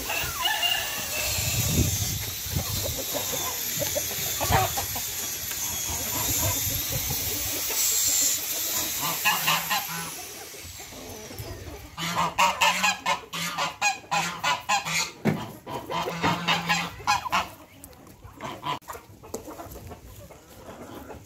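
Farmyard poultry calling, ducks and chickens together, over a steady hiss in the first half. From about twelve seconds in comes a loud run of quick repeated calls lasting about five seconds, then scattered quieter calls.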